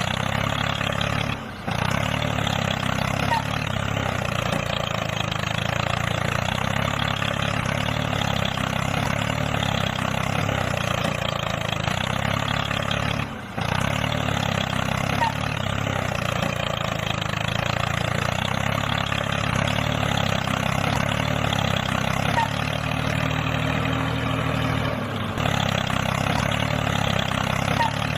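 Tractor engine running steadily at a constant pitch, dropping out briefly three times: about a second and a half in, around the middle, and near the end.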